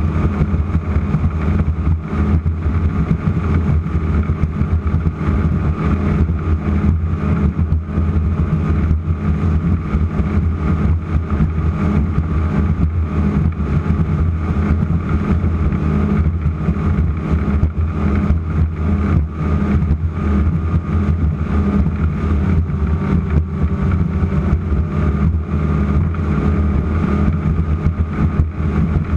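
Offshore racing powerboat's engines running steadily at racing speed, a constant deep drone with fast flutter from wind and water.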